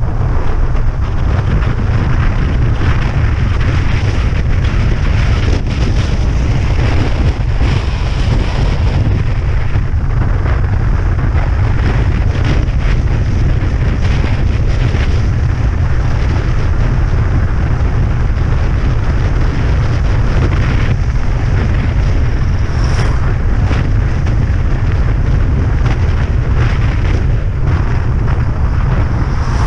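Steady, heavy wind buffeting on the microphone from riding along a road, a dense low rumble with road noise under it.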